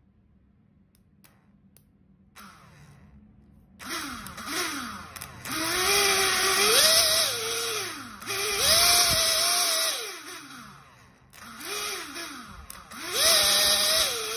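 A small brushed DC motor, run from a homemade 2-cell lithium polymer pack, spins up in repeated bursts as its leads are touched to the battery. Each time it rises to a high whine, holds, and winds down when contact breaks. This happens several times, starting about four seconds in after a faint opening.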